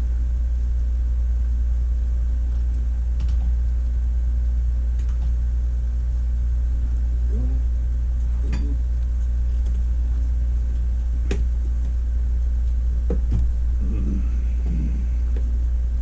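A steady low hum, with a few light clicks and soft knocks of handling on top.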